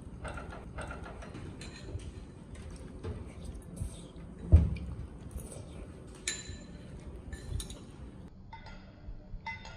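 Glass and tableware clinking now and then on a stainless steel table, with one dull knock about halfway through.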